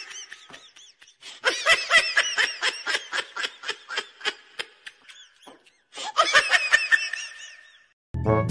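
Laughing sound effect: a person laughing in rhythmic bursts of short 'ha' pulses, three bouts in all, the longest in the middle. Near the end a brief different sound cuts in.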